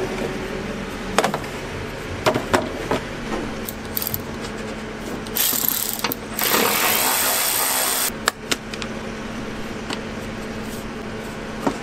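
Plastic clicks and knocks as the air intake is handled, then a ratchet turning the intake bolts in two runs of rapid clicking about five to eight seconds in.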